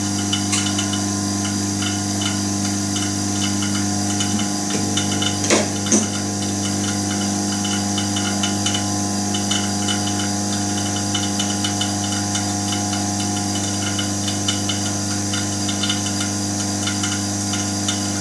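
Electric vacuum pump running steadily, a low hum with a fast, even ticking chatter, while the fusor is under power. Two sharp clicks come about five and a half and six seconds in.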